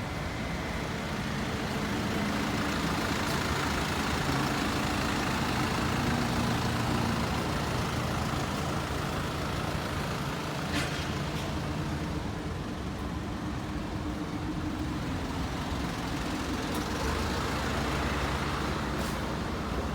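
Large truck engine running steadily, its low hum shifting slightly in pitch, with a single sharp click about eleven seconds in.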